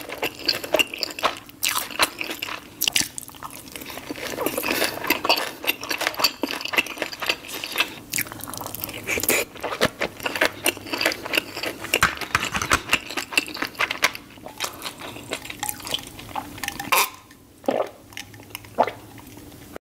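Close-miked wet chewing of soup dumplings (xiaolongbao): dense, sticky mouth clicks and smacks, with brief liquid slurps. The sound thins out near the end into a few swallows of water.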